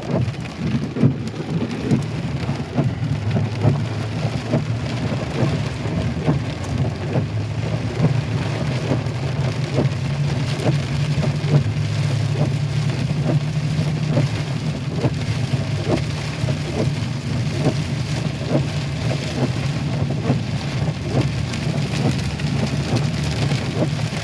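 Heavy rain pelting a pickup truck's roof and windshield, heard from inside the cab as a dense, steady patter of drops over a continuous low rumble.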